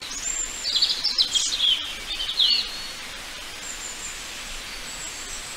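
Birds chirping and twittering over a steady forest-ambience hiss. The chirps are busiest for the first two and a half seconds, then only a few faint high calls remain.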